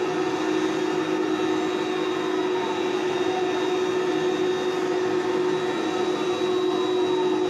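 Airbus Beluga ST's twin General Electric CF6 turbofan jet engines running at taxi power: a steady whining rush with a held hum and a high whistle, and faint slow pitch slides drifting through it.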